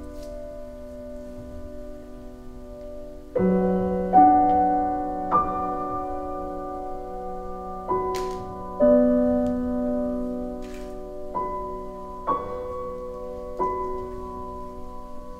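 Slow, sparse piano music: a held chord fading away, then about eight notes and chords struck one at a time from a few seconds in, each left to ring and die away.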